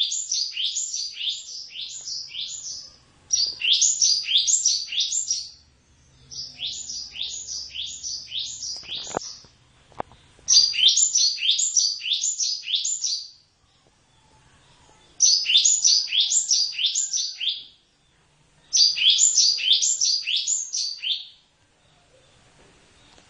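Cinereous tit (gelatik batu) singing: bouts of a high note repeated about two to three times a second, each bout lasting roughly two and a half seconds, with short pauses between them. A couple of faint clicks come midway.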